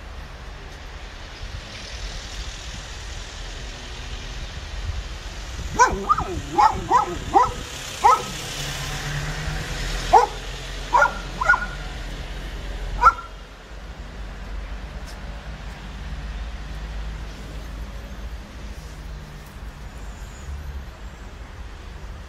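About ten short, sharp animal calls in quick clusters, from about six to thirteen seconds in, over a steady low rumble.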